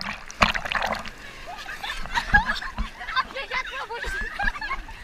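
Wave-pool water splashing and sloshing around swimmers near the start, then several women laughing and squealing.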